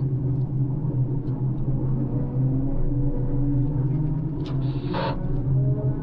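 Floating crane's engine running with a steady low drone, with a short hiss about five seconds in.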